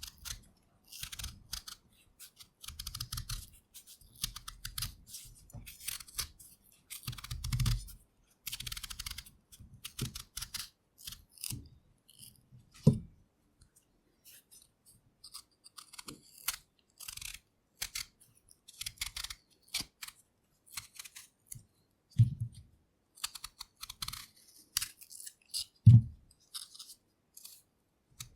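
A knife peeling a raw potato: short, irregular scraping strokes of the blade through the skin, with a few louder dull knocks.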